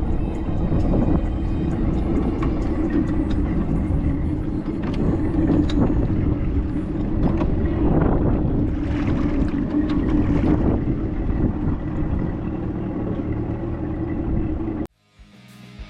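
Fishing boat's motor running steadily under way, with wind on the microphone. It cuts off suddenly near the end, and guitar music starts.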